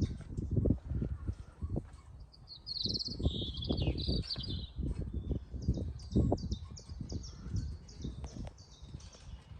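Birds chirping: a short high chirp repeated several times a second, with a brief trill about three seconds in. Underneath runs an irregular low rumble with thumps.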